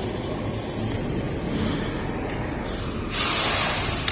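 Honda Pop 110i's single-cylinder engine running with the growl ('ronco') of its sport air filter. A thin high whistle sounds for about two seconds, then a sharp hiss of air lasts about a second near the end.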